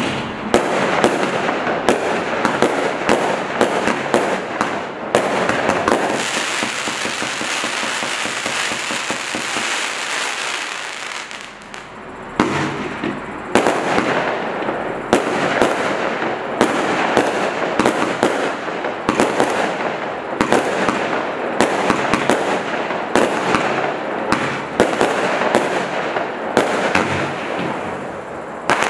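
A 110-shot consumer firework cake firing in quick succession: rapid launch thumps and aerial bursts, with a stretch of dense, continuous crackle a few seconds in and a brief lull near the middle.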